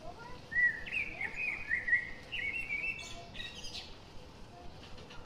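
A bird singing a warbling run of quick chirps and trills for about three seconds, starting about half a second in, with a faint steady hum underneath.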